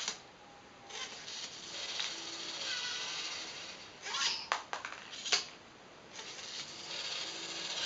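LEGO NXT servo motors of a colour-sorting ball catapult whirring in spells as the mechanism turns and loads, with a run of sharp plastic clacks from the catapult arm about four to five seconds in.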